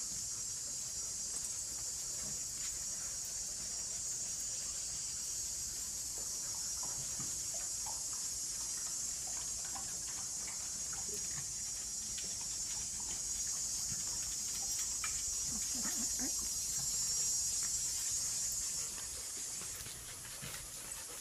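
Steady, high-pitched insect chorus, a continuous shrill drone that cuts off near the end.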